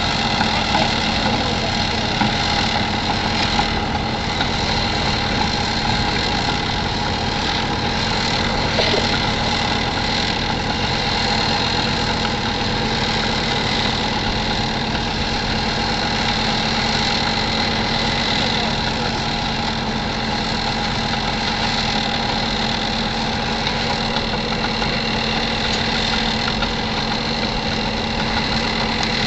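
An engine running steadily at an even pitch, with a constant whine over the motor sound and no revving.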